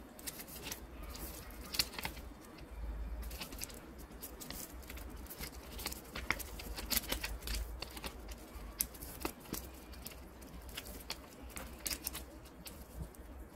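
Origami paper rustling and crinkling as it is folded and creased by hand against a tabletop, a string of small, irregular clicks and crackles.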